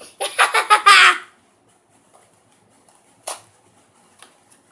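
A boy's short, squawky, wordless vocal noise in quick pulses for about a second, then a single sharp click about three seconds in, with faint small handling ticks.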